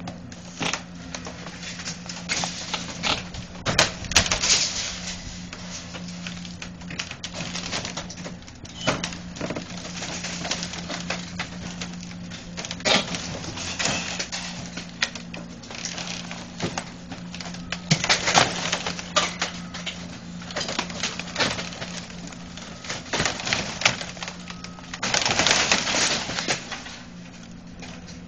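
Demolition machinery at work: an engine runs steadily under repeated crunching, cracking and clanking as metal and debris from the collapsed roof are torn and crushed. The breaking is loudest about 4 seconds in, around 18 seconds, and in a longer burst near the end.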